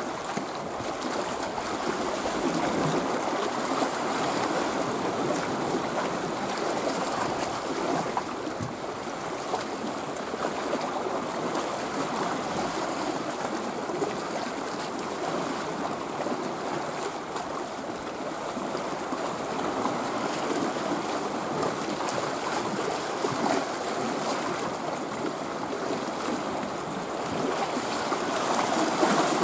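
Steady wash and splash of small waves on open sea water, with no single event standing out.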